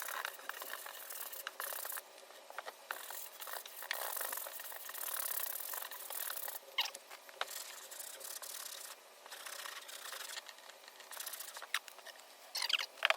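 Scrubbing and rubbing on the back panel of a guitar speaker cabinet coated with cleaner, in uneven strokes, with a few short squeaks near the end.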